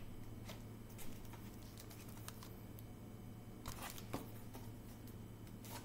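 Faint rustles and soft taps of a hardcover picture book's pages being turned by hand, over a low steady hum.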